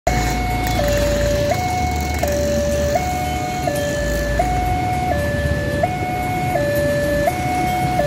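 Railway level-crossing warning siren sounding a two-tone hi-lo alarm, switching between two pitches about every three-quarters of a second. It warns of an approaching train as the crossing barrier lowers.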